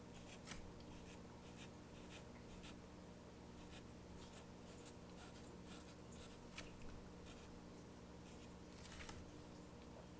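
Sharpie felt-tip marker drawing on card stock: faint scratchy squeaks of many short, quick strokes as small pointed teeth are inked in one after another.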